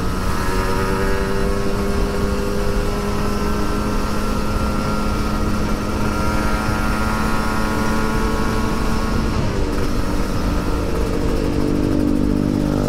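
Sport motorcycle engine and exhaust heard from the rider's seat while cruising, with a steady note that creeps slowly up in pitch, over constant wind rush. About ten seconds in the note changes and drops lower.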